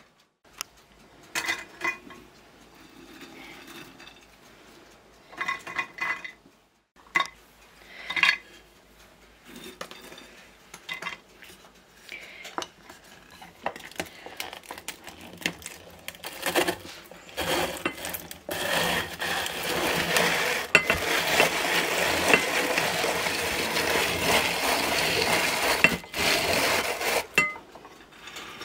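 Walnuts being ground in a hand-cranked rotary drum grater: a dense, continuous grinding rattle for about ten seconds in the second half, stopping shortly before the end. Before it come scattered clinks and knocks of kitchenware.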